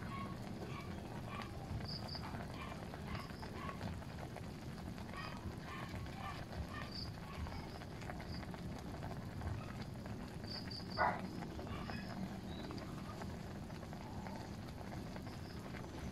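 Evening outdoor ambience: insects and frogs calling in short, scattered high chirps over a steady low background noise, with one louder, sharper call about eleven seconds in.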